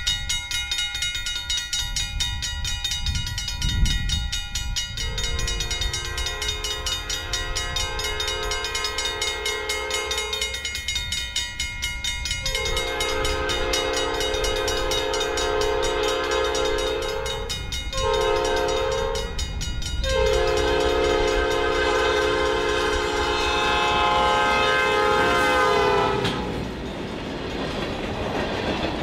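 Canadian National GE ES44DC diesel locomotive sounding its air horn in the grade-crossing pattern, long, long, short, long, over the steady rumble of the approaching train. Near the end the horn stops and freight cars roll past with wheel clatter.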